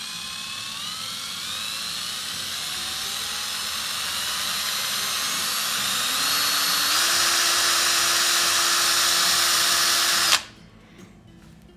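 Parkside PSBSA 20-Li B2 20 V cordless hammer drill running with no load, a whine that rises steadily in pitch and loudness as the motor speeds up, stepping up again about two-thirds of the way through. It stops abruptly after about ten seconds.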